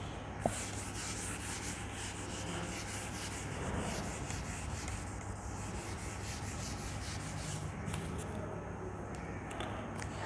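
Whiteboard eraser rubbing across a whiteboard in repeated back-and-forth wiping strokes, with a single sharp tap about half a second in.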